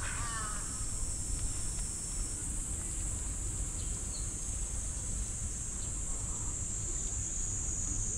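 Steady, high-pitched drone of insects. A bird call sounds right at the start.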